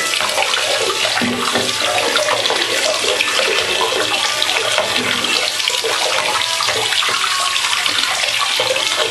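Bathtub tap running steadily, its stream splashing over a cluster of rock crystals held under it and into the tub.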